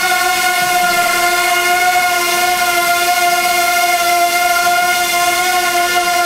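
Wingsland S6 mini quadcopter hovering, its propellers giving a loud, steady whine.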